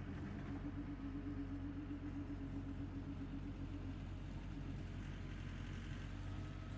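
Tractor engine running steadily while working a power rake, with a pulsing tone that drops out about four seconds in.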